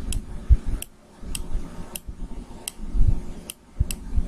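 A series of light, sharp clicks, roughly one every half second to second, with soft low thumps in between: clicking and handling on a laptop while drawing.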